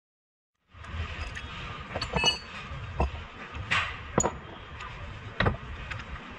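Metal tools and parts clinking and knocking in scattered single strikes, one ringing briefly with a metallic tone about two seconds in. The sound cuts out completely for the first half second or so.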